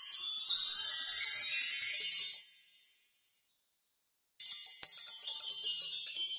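Two bursts of high, glittering chime sparkles: a rising shimmer that fades away, about a second of silence, then a second shimmering run of chimes.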